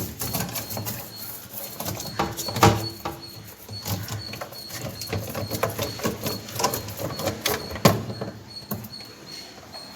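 Scratchy rubbing and handling noises from fridge cleaning with a salted lemon, with two sharp knocks about three seconds and eight seconds in.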